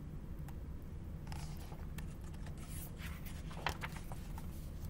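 A picture book's pages being turned: a few soft paper rustles and scrapes over a steady low room hum.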